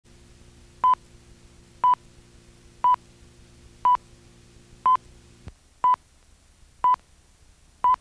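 Countdown beeps on a programme slate: short, identical, steady-pitched beeps, one every second, eight in all, counting down to the start of the programme. A low electrical hum under the first five beeps cuts off with a click about five and a half seconds in.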